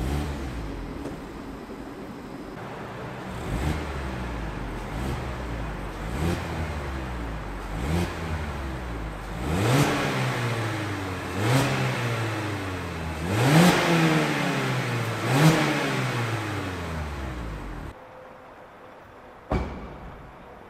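Mazda MX-5 ND's four-cylinder engine on its stock exhaust, idling when warm and blipped about seven times, each rev rising and falling, the higher revs in the middle. The sound stops abruptly about eighteen seconds in, with a brief burst near the end.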